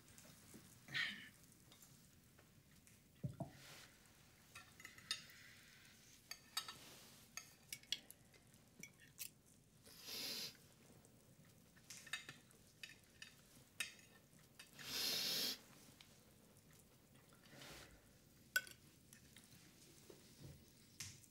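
Cutlery clinking and scraping on plates at a dinner table, in scattered quiet clicks, with two longer bursts of noise of about a second each, roughly ten and fifteen seconds in.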